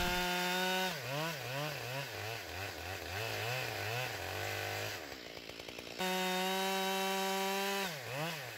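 Two-stroke chainsaw bucking a downed oak into firewood rounds. It holds steady at high revs, then its pitch rises and falls repeatedly for a few seconds, drops to a lower, quieter note around five seconds in, and runs steady at high revs again from about six seconds until just before the end.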